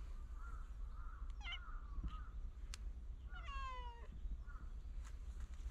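A cat meows: one drawn-out meow falling in pitch about three and a half seconds in.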